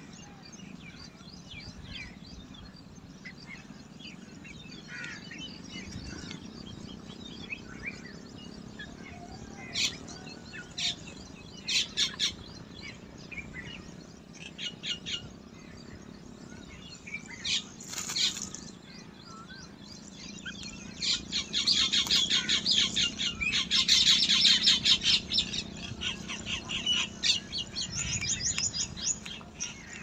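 Black drongo chicks begging in the nest while the parent feeds them: scattered short, high chirps, then a long run of rapid, loud chirping about two-thirds of the way in. A faint steady low rumble lies underneath.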